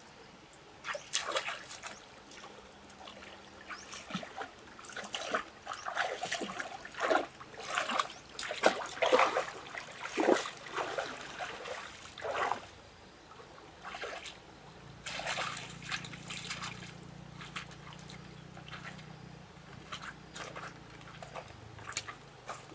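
Water splashing and sloshing in irregular bursts, busiest in the first half and thinning to a few scattered splashes later.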